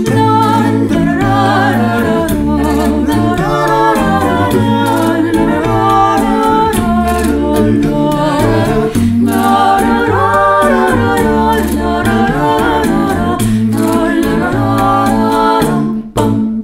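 An a cappella vocal group singing a multi-part arrangement with a sung bass line and a steady beat of vocal clicks. It stops abruptly near the end.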